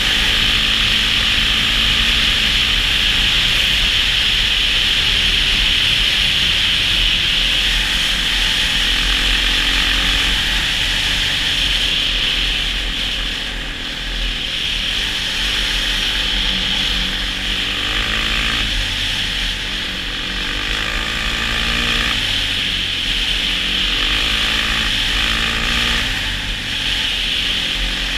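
A quad's (ATV) engine running at speed under a loud, steady rushing hiss of wind and tyres on snow-covered ice. From about halfway the engine pitch rises and falls repeatedly as the throttle changes.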